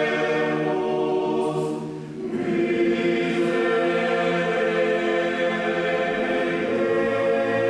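Choir singing slow, sustained chords, with a brief break about two seconds in before the next chord comes in.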